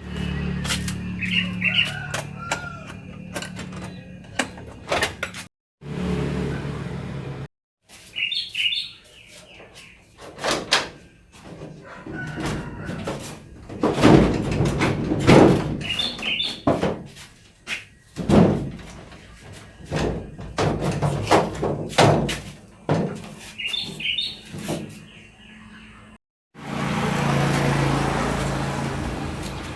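Short bird chirps now and then over a string of knocks, clicks and clatter from household work, broken by sudden cuts; near the end a steady rushing noise with a low hum takes over.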